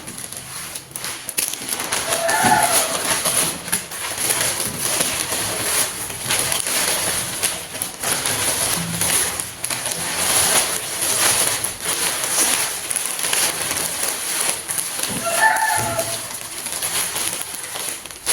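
A steady crackling hiss, with a short call from a bird twice: once about two seconds in and again near the end.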